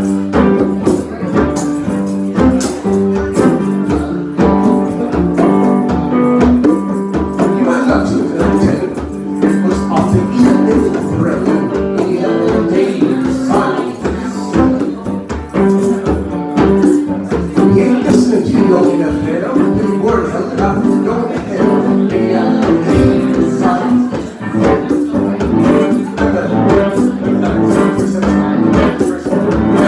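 Live band playing a song: electric guitar with hand percussion on congas, and voices singing.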